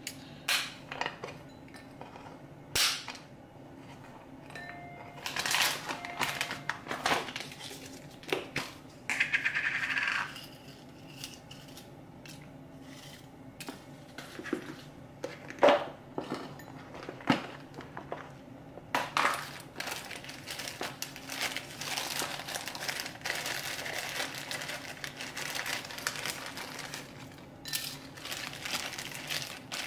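Kitchen handling sounds: scattered clicks and knocks as dry spices and small pieces go into a small glass bowl on a wooden cutting board, then a longer stretch of plastic bag crinkling in the second half.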